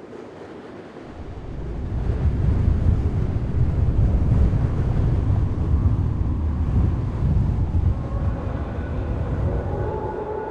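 A deep, noisy rumble swells up over the first couple of seconds, holds, then eases off, like wind or a passing train. Faint held tones come in near the end.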